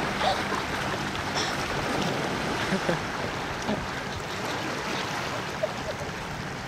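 Lake water lapping and splashing, a steady wash of noise with small scattered splashes.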